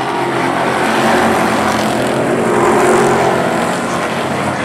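A pack of Pro Truck race trucks' engines running at speed as they pass, growing louder to a peak about three seconds in, then easing off.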